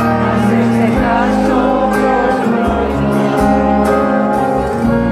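Live band music at a concert, with long held bass notes under a singer's voice, picked up from among the audience.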